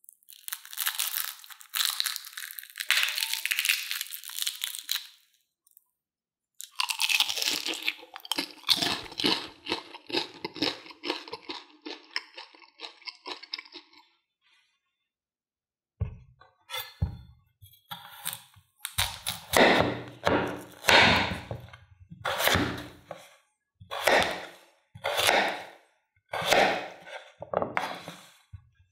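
Crispy fried potato snacks crackling as they are broken apart by hand. Then, after a short pause, a kitchen knife cuts raw peeled potatoes into chunks on a wooden cutting board: about one cut a second, each ending in a knock of the blade on the board.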